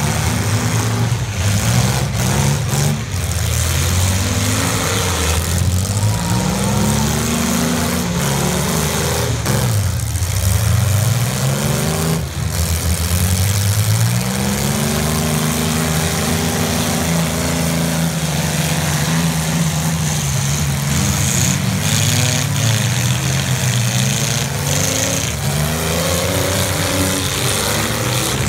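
Demolition derby cars' engines revving hard, their pitch rising and falling over and over, with several sharp bangs of cars colliding.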